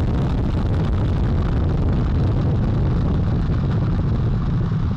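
NASA Space Launch System rocket climbing seconds after liftoff, its four RS-25 core stage engines and two solid rocket boosters firing together: a loud, steady, deep rumble.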